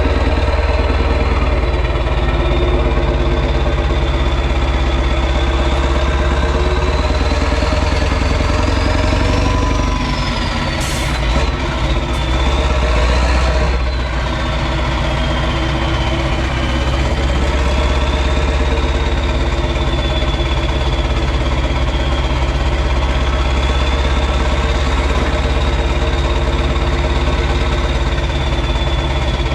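Renault Magnum AE 560's 16.4-litre Mack E9 V8 diesel running steadily through an open exhaust, with a thin high turbo whistle over it that climbs about ten seconds in, then dips and wavers.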